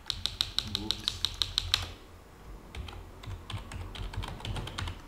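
Typing on a computer keyboard: a fast, even run of about a dozen keystrokes in the first two seconds, then slower, softer key presses.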